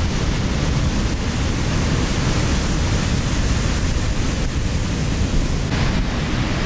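Steady roar of ocean surf breaking, with wind rumbling on the microphone.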